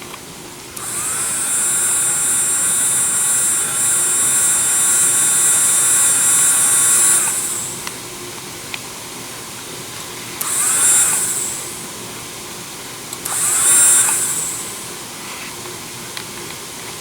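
Low-cost electric dental micromotor drill running with a high whine for about six seconds, then run twice more in short bursts of about a second each, its pitch rising as it spins up each time.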